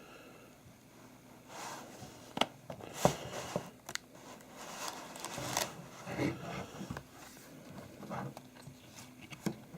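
Hands handling a book-style Blu-ray case: irregular rustling and scraping with a few sharp taps and clicks, the sharpest about two and three seconds in.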